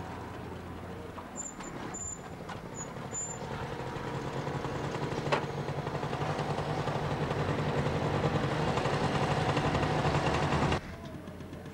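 A motor vehicle engine running steadily, growing louder over several seconds and then cutting off abruptly near the end.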